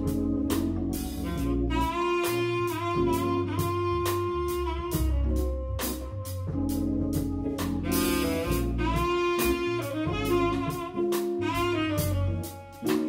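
Jazz quartet playing: a tenor saxophone plays a line over Hammond organ, guitar and a drum kit keeping time, with the organ supplying the low bass notes.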